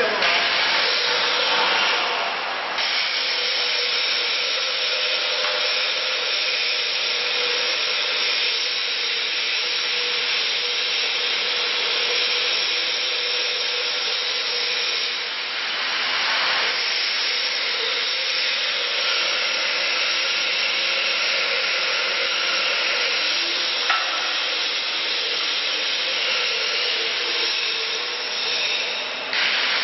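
Steady whirring hiss of machinery running, with a faint hum underneath and a single click about 24 seconds in.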